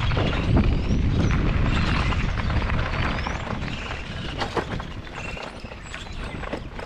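Rumble of a vehicle moving slowly over a rough campground road, with scattered knocks and rattles, dropping in level after about three seconds.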